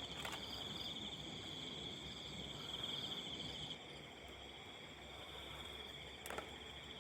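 Crickets chirring in a steady high trill, a little fainter from about four seconds in.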